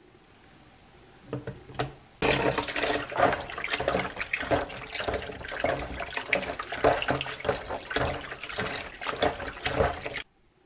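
Hands rubbing and squeezing raw pork intestines in a bowl of plain water: irregular splashing and sloshing. It starts suddenly about two seconds in and cuts off abruptly near the end.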